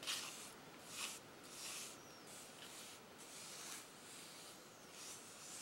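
Plastic spatula spreading thick baking-soda texture paste over a stencil on cardstock: a string of faint, short scraping strokes.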